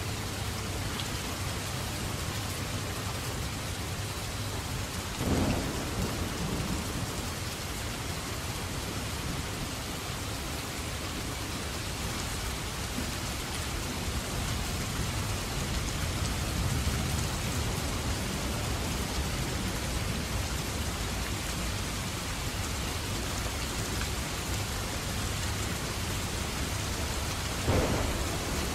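Steady rain, with a low rumble underneath and two brief louder thuds, one about five seconds in and one near the end.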